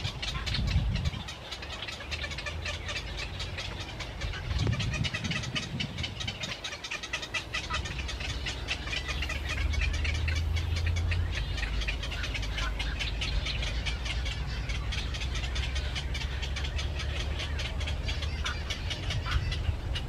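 Small birds chirping in a dense, rapid, continuous stream, over a steady low rumble.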